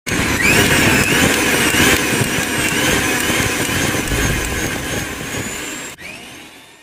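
Channel intro sound effect: a loud rushing noise with wavering high tones, starting abruptly and fading out near the end.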